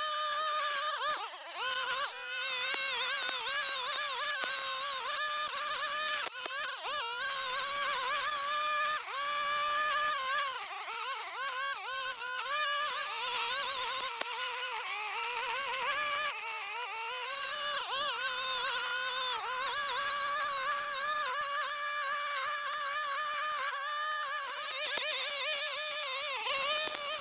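Gas string trimmer running at high speed, its nylon line cutting through tall grass. The high engine note wavers throughout, dipping and recovering now and then.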